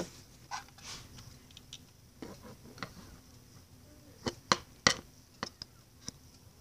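Handling noise: a scattering of sharp taps and clicks of small hard objects, with the loudest three coming close together about four to five seconds in.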